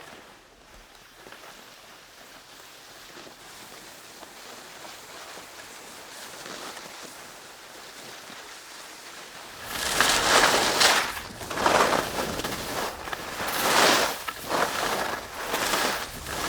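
Skis hissing and scraping over snow in a run of turns, loud surges about every one and a half to two seconds, starting about ten seconds in after a stretch of faint steady outdoor hiss.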